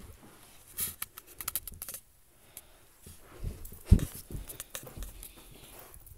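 Handling noise as the camera is moved around: rustling and a run of light, scratchy clicks, then a single loud thump about four seconds in.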